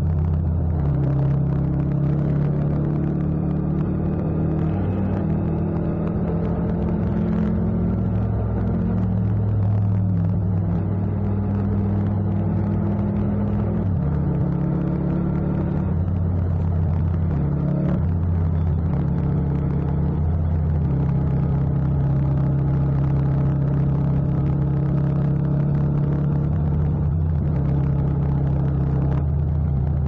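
Yamaha MT-07's 689 cc parallel-twin engine running under way, heard from the rider's seat without wind noise. Its pitch shifts up and down several times as revs change.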